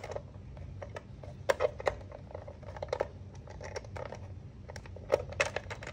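Irregular light clicks and knocks of parts being handled and fitted inside the plastic housing of an Eryone Snail filament dryer: a few quick ones about a second and a half in, one at about three seconds, and a small cluster near the end.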